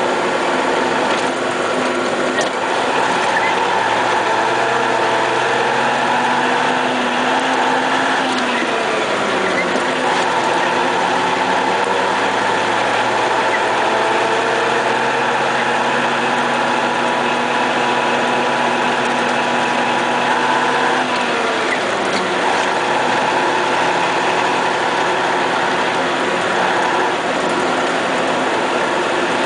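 MAZ snowplow truck's diesel engine heard from inside the cab, running steadily under a constant mechanical rattle. Its note drops in pitch about eight seconds in and again about twenty-one seconds in, then picks up again.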